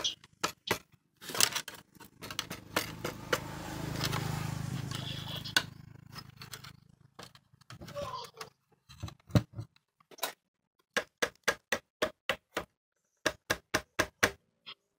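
Hand work on metal parts: sharp clicks and clinks, and a rough scraping noise that swells and fades over a few seconds in the first half. In the second half come quick runs of ticks, about five a second.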